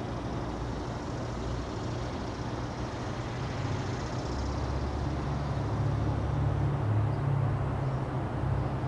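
Distant diesel locomotives of an approaching freight train, a low steady engine drone that grows louder from about halfway through.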